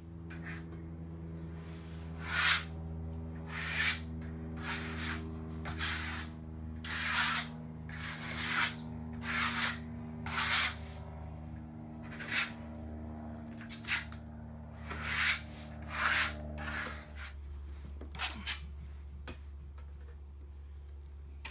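A notched trowel scraping flooring adhesive across plywood underlayment in repeated short strokes, about one a second. A steady low hum runs underneath and stops about 17 seconds in.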